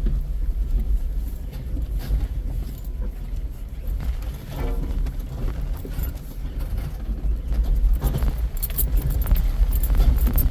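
Jeep engine running low and steady while crawling along a rough off-road trail, with rattling and clicking over the top from about eight seconds in.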